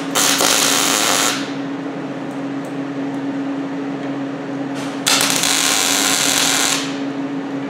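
MIG (GMAW) short-circuit transfer arc on 14-gauge plate, C25 argon/CO2 shielding gas, 17.6 volts and 192 wire feed speed, laying two tack welds: a burst of about a second at the start and a longer one of about a second and a half near the end.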